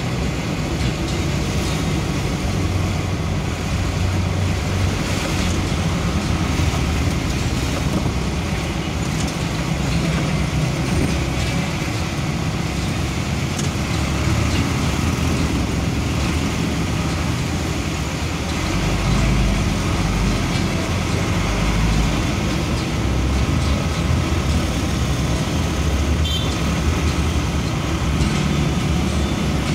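A vehicle driving through slow town traffic, heard from inside the cabin: a steady engine rumble and road noise.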